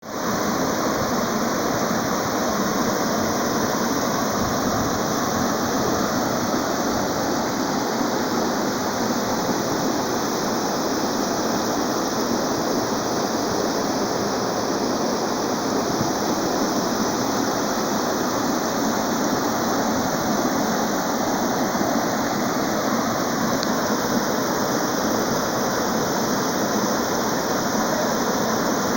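Small river waterfall, water pouring over it in a steady, unbroken rush.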